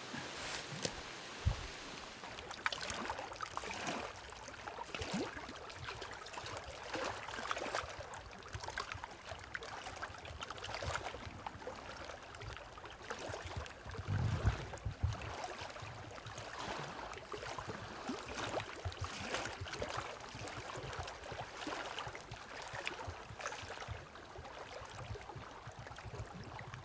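Campfire crackling and popping, with light rain pattering. A short low rumble comes about halfway through.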